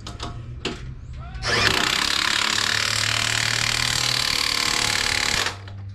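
A power tool spins up about a second and a half in, runs steadily for about four seconds, then cuts off.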